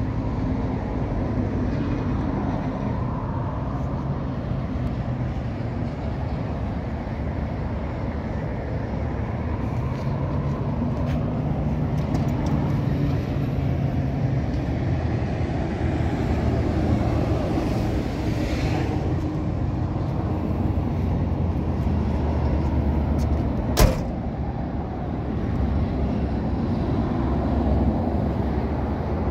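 1987 Chevrolet El Camino's engine idling steadily. About three-quarters of the way through, the car door shuts with one sharp knock.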